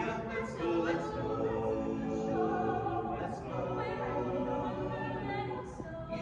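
Carolers singing together in several voices, with sustained, held notes.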